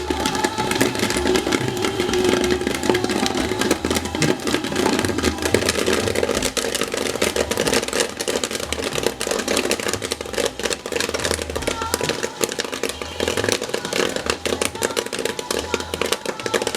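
Popcorn machine running, with a dense, continuous rattling clatter.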